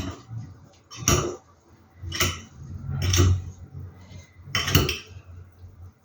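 A metal utensil knocking and scraping against a glass jar in four short clattering strokes about a second apart, chipping at a stuck-on bit of residue.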